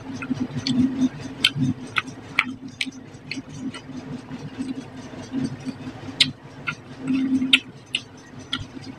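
Close-miked eating by hand of fried tilapia curry with rice: wet mouth smacks and chewing, with many short irregular clicks, several a second.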